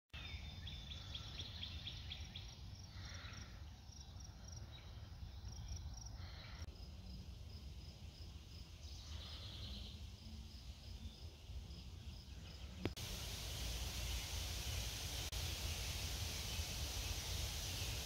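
Outdoor ambience: birds singing in short phrases, a high chirp repeating evenly, and a low rumble underneath. About thirteen seconds in a click is followed by a louder steady hiss.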